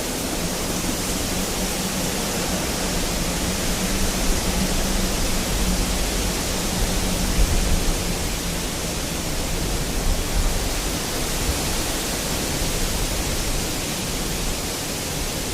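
Fireplace fire burning: a steady hiss and low rumble, with a few small pops.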